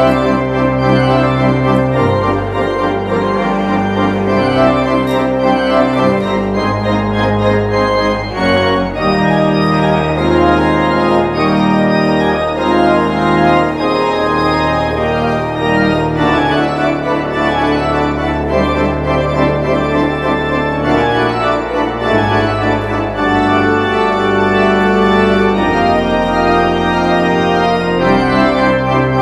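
Church organ played from a three-manual console: full sustained chords over held bass notes that change every second or two, with moving notes above.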